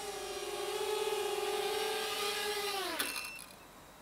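Small FPV quadcopter's electric motors and propellers whining steadily as it flies closer, a little louder about a second in. About three seconds in it sets down with a knock and the motors wind down, the pitch falling away quickly.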